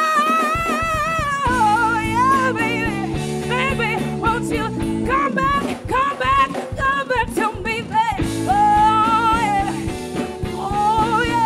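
A woman singing lead into a microphone, long held notes with vibrato and quick runs, over a live band of electric guitar, bass, keyboard and drums.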